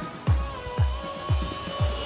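Electronic background music with a steady beat, a low kick drum about twice a second under held synth tones.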